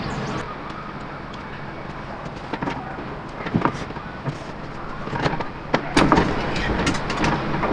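A handful of knocks and bumps over a steady background hiss, from a wooden cupboard being manoeuvred and shifted through a narrowboat's cabin.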